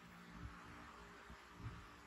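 Near silence: faint steady room hiss, with two soft low bumps, one about half a second in and one near the end.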